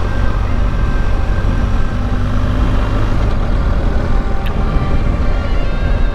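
BMW R1250 GS Adventure's boxer-twin engine running while riding, under a steady heavy wind rumble on the microphone.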